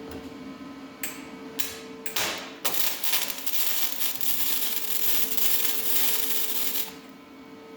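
Welding arc on a car body patch panel: a few short sputtering tacks, then a steady crackling bead for about four seconds that stops near the end. A faint steady hum runs underneath.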